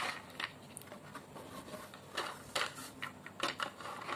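A plastic cake turntable being handled and turned over, giving several short plastic clicks and knocks with light rubbing, most of them in the second half.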